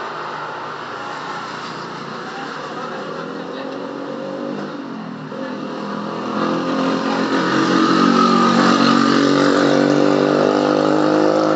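A motor vehicle engine running, growing louder about six seconds in and rising slowly in pitch.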